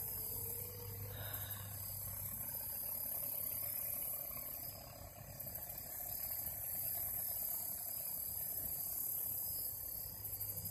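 A small outboard motor running steadily in the distance, under a steady high-pitched chirring of insects.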